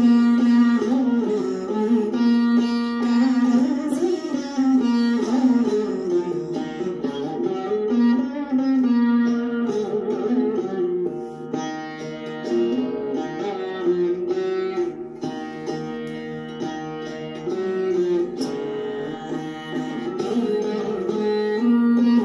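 Saraswati veena played solo: plucked notes ringing on in a continuous Carnatic melody, the pitch sliding up and down between notes as the strings are deflected on the frets.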